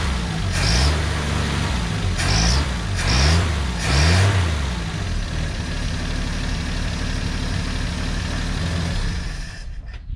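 1951 Studebaker Champion's flathead six running through a makeshift exhaust with a Corolla muffler. The throttle is blipped in four quick revs, then the engine settles to a steady idle, just raised to stop it surging. The engine sound stops just before the end.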